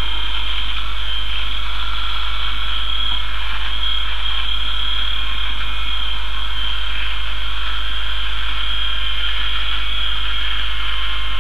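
Steady low electrical hum under an even high hiss with a faint thin whine, with no distinct event.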